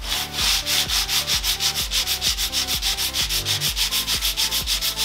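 Hand sanding with a folded sheet of 150-grit sandpaper, rubbed back and forth over dried wood filler and the varnished wooden seat of a bench in quick, even strokes. This is sanding down the first coat of filler, which has shrunk back into the groove.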